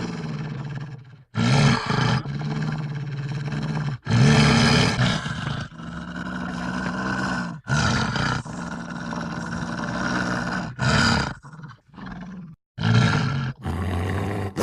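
Wolves calling: a run of low, drawn-out calls, each lasting up to about three seconds, with abrupt breaks between them.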